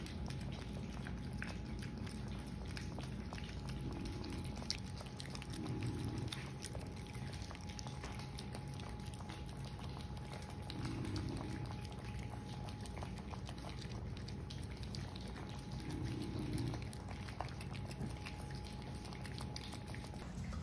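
French bulldog puppies eating mushy food from a plastic tray: wet lapping, smacking and chewing with many small clicks.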